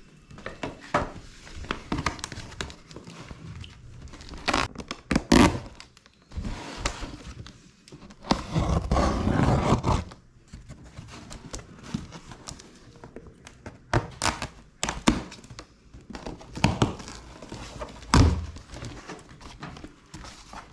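Plastic parts of an electric fan being handled and fitted together: irregular knocks and clicks, with a sharp thunk about five seconds in and a longer rustle from about eight to ten seconds in.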